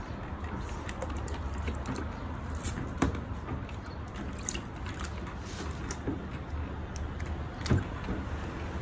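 A pet turtle swimming in a shallow plastic tub, the water sloshing around it, with scattered light clicks and two sharper knocks against the tub, one about three seconds in and one near the end as it climbs out. A steady low rumble sits underneath.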